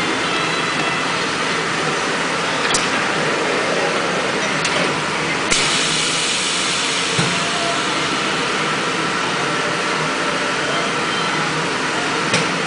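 Ultrasonic packaging welding machine running with a steady mechanical hum and hiss. Sharp clicks come about three and five seconds in and again near the end, with a dull thump about seven seconds in. From about five and a half seconds a brighter hiss sets in and holds.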